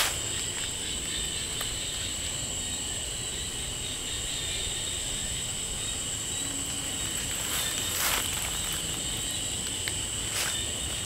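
Night insects singing steadily at two high pitches, a continuous chorus. A few rustling footsteps in leaf litter come about eight seconds in and again near the end.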